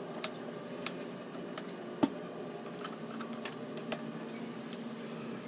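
Kitchen knife slicing tomatoes on a plastic chopping board: irregular sharp taps of the blade against the board, with one louder knock about two seconds in.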